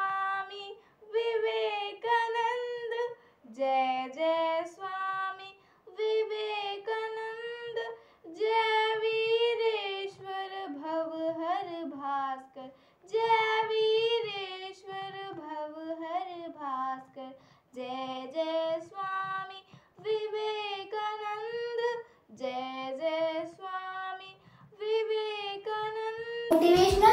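A girl singing solo without accompaniment, in short phrases with brief pauses between them. Just before the end, a louder sound cuts in.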